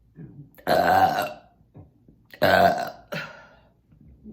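A woman belching loudly twice, each burp about half a second long and about a second and a half apart, with a short soft sound before each.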